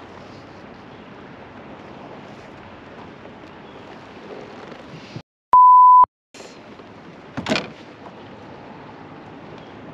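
A pure-tone censor bleep near 1 kHz, about half a second long, edited into the audio with the sound cut to silence just before and after it, over a steady background hiss. A short loud burst of noise follows about two seconds later.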